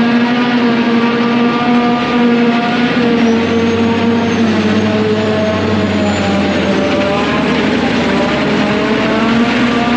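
Loaded farm truck's diesel engine pulling uphill under load, with a steady engine note that dips slightly and recovers about two-thirds of the way through.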